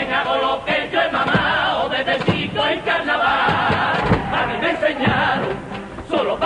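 Male chirigota chorus singing together, with guitar strumming and drum beats under the voices.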